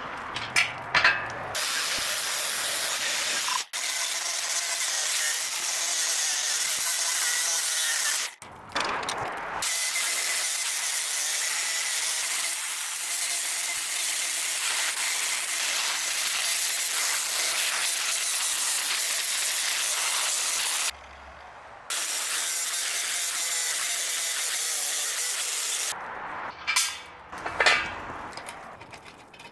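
Angle grinder grinding steel to bare metal, a steady hiss with a faint motor whine, broken by a few short gaps.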